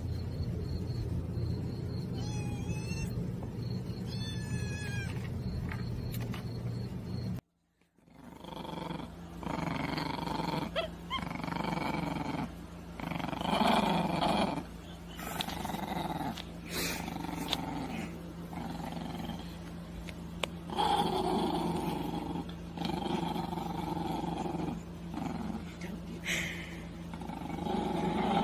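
A steady low rumble for the first few seconds, then, after a brief dropout, a chihuahua growling and snarling in repeated bursts.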